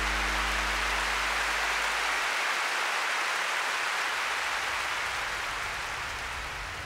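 Low sustained synth notes fade out in the first two seconds, leaving a steady rain-like hiss that slowly gets quieter.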